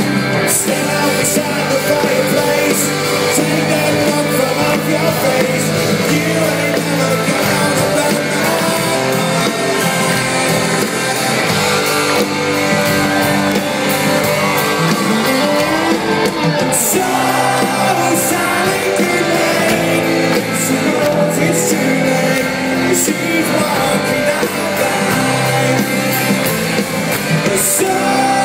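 Live rock band playing with electric guitars and sung vocals, recorded from the audience.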